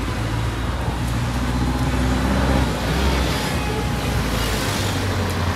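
Street traffic: vehicle engines running and passing, a steady low rumble under road noise.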